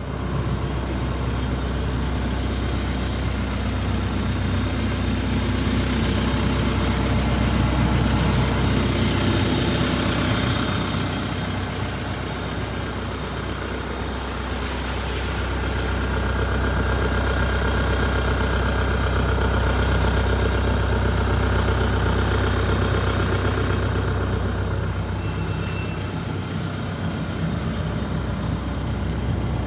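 Diesel engine of a 2008 Terex TW130 wheeled excavator running steadily, its level swelling and easing a couple of times.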